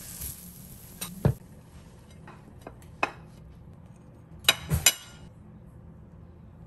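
Pancakes sizzling in a frying pan, stopping after about a second and a half, followed by a few light knocks. About four and a half seconds in, three sharp clinks ring briefly: a metal knife and fork set down on a ceramic plate.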